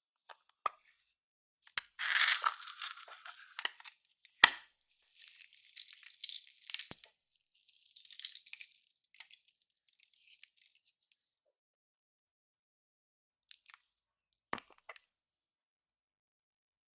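Close-up crackling and tearing noises in three bursts as slime and makeup are handled, with a few sharp clicks and taps in between; the loudest click comes at about four and a half seconds.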